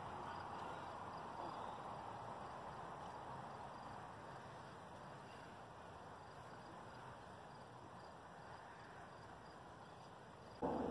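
Faint, steady outdoor ambience: a soft even hiss that fades slightly over the seconds. Near the end the sound cuts abruptly to something much louder.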